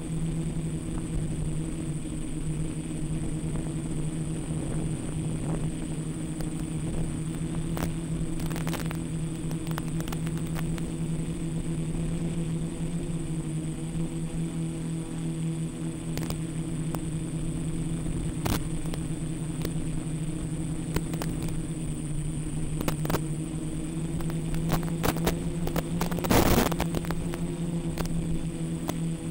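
Quadcopter's electric motors and propellers buzzing steadily in flight, a low hum with a thin high whine on top. Occasional clicks and crackles break through, with a louder crackly burst near the end.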